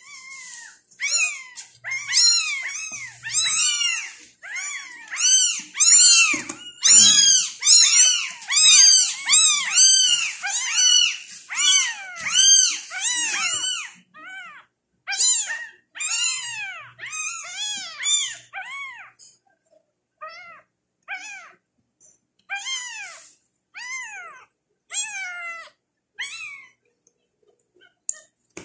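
Very young tabby kittens meowing, a rapid string of high-pitched cries, each rising and falling in pitch. The cries come thick and loud for the first half, then grow sparser and quieter.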